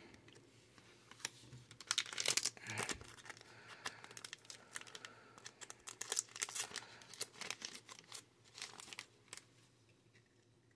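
Trading cards and their packaging being handled: soft, irregular crinkling and rustling with scattered sharper crackles.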